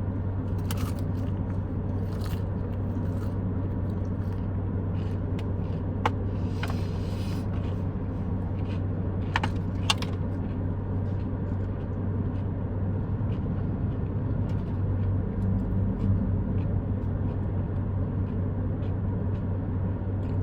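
Steady low hum of an idling car heard inside its cabin, with a few small clicks and a brief rustle of someone chewing and handling food.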